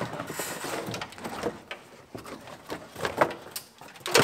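A felt trunk side liner being pulled out of a car's rear quarter: rustling and scraping of the felt against the body panels, with scattered knocks and clicks and one sharp knock near the end.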